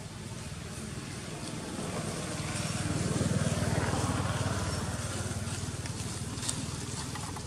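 Engine of a passing motor vehicle: a low, pulsing engine hum that grows louder to a peak about halfway through, then fades.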